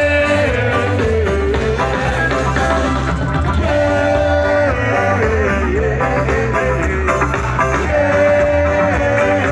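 Live rock band playing loud through the stage PA: a steady bass beat under a singer's long held notes, which come near the start, about four seconds in and again about eight seconds in.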